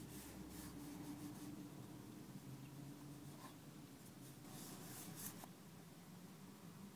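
Bic Round Stic medium ballpoint pen scratching faintly on printer paper as lines are sketched, in short strokes that come in clusters near the start and around five seconds in. A faint steady low hum lies underneath.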